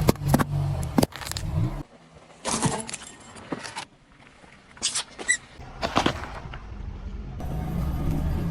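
A car rolls slowly with a low engine and tyre rumble while objects crack and crunch under its tyres, a series of sharp cracks and snaps. The rumble drops out for several seconds in the middle and returns near the end.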